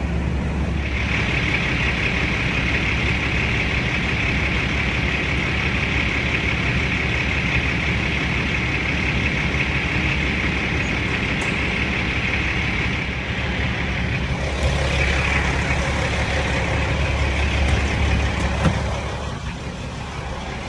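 Truck running, a steady loud drone with a high hiss that sets in about a second in and shifts about two-thirds of the way through. No rhythmic squeak is heard from the bonnet, whose rest surfaces have just been padded with rags.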